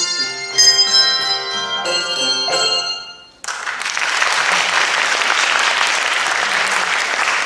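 A handbell choir rings the last few struck chords of a piece on handbells, the chords damped off at about three seconds. About half a second later the audience breaks into steady applause.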